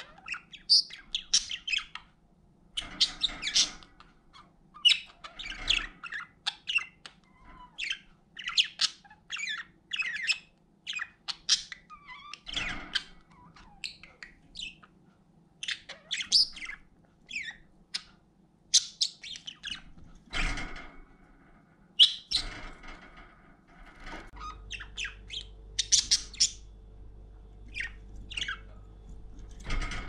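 Pet budgerigars chirping, many short high calls in quick runs with brief pauses between them.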